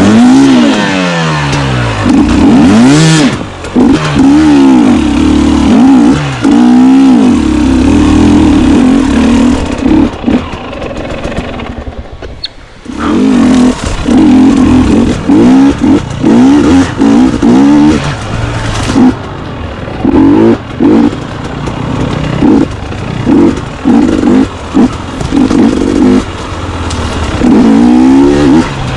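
Enduro dirt bike engine being ridden hard on a rough trail, revving up and falling back again and again, with a short easing off about twelve seconds in and then a run of quick throttle blips.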